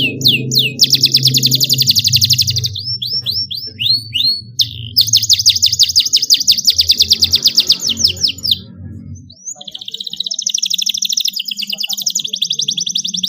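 Domestic canary song: long, very fast rolling trills of high repeated notes, broken by short runs of separate sweeping whistles. A low hum sits underneath and stops about nine seconds in.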